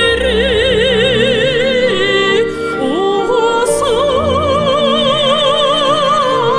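A woman singing long held notes in an operatic style with wide vibrato, stepping up in pitch a little under halfway through, over steady instrumental accompaniment.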